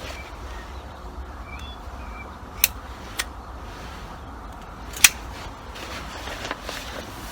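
Three sharp clicks, the last the loudest, over a steady low background rumble.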